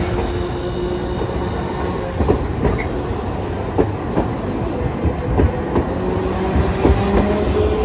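Hiroshima Electric Railway 3950-series Green Liner articulated tram rolling slowly past through a curve at a track junction. Its wheels click irregularly over the points and rail joints, under a steady low rumble.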